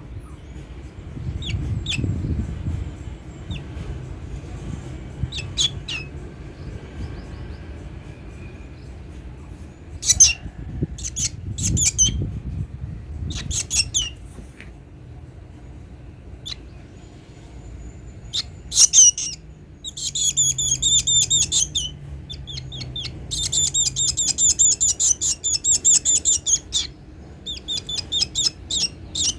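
A baby black bird chirping in short, sharp, high calls, scattered at first, then in a fast run of many chirps over the second half, the way a nestling begs while being fed worms.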